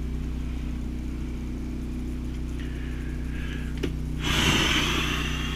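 Steady low mechanical hum, with a single click shortly before four seconds in and then a short harsh rushing noise over the last second or so.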